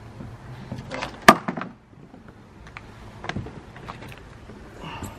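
Knocks and bumps against a kayak's hull as a person climbs in and handles the paddle, with a sharp knock about a second in the loudest, then a few fainter knocks.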